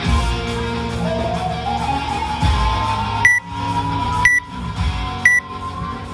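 Three short, high beeps of a gym interval timer, about a second apart, counting down the last seconds of a 20-minute workout. Guitar music plays throughout.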